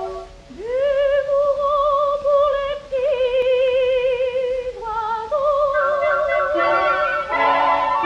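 Opening bars of a 1938 French music-hall song played from a 78 rpm shellac record with orchestra. A single melody line with wide vibrato slides up into its first note about half a second in, and more instruments join in layered chords in the second half.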